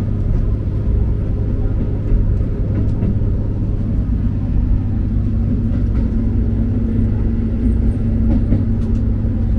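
Cabin sound of a JR Hokkaido H100-series diesel-electric railcar under way: a steady low engine drone over the rumble of the wheels on the rails. A higher hum grows louder about halfway through.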